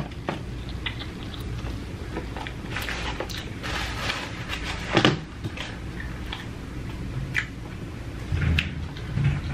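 Close-miked chewing of seasoned curly fries: scattered wet mouth clicks and smacks, with a louder smack about five seconds in.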